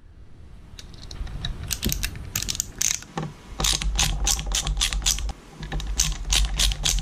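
Ratcheting screwdriver clicking in quick runs as a screw is backed out of a plastic check valve housing, with the nut held in pliers.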